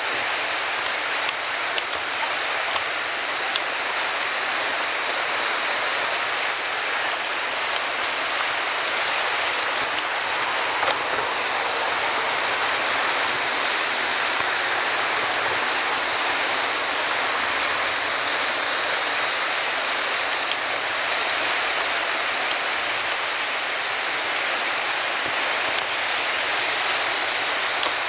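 Flood-swollen river rushing past with a steady, loud, hissing rush of fast, turbulent water.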